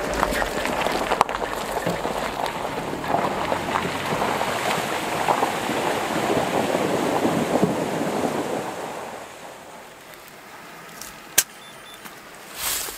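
An SUV's tyres splashing through a deep puddle on a dirt road, water spraying for several seconds before the noise fades away. Near the end there is a sharp click, then a short hiss as the cap is pried off a beer bottle.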